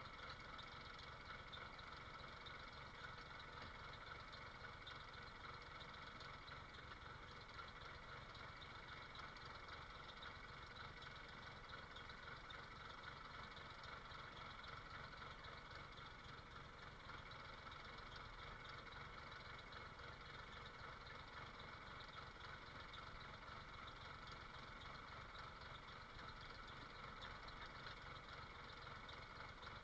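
Faint engine idling steadily, a low rumble with no changes in speed.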